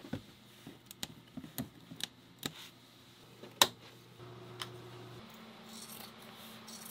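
Sharp, irregular clicks and taps of things being picked up and handled, then, near the end, scissors snipping through fiberglass cloth. A faint steady hum runs under the second half.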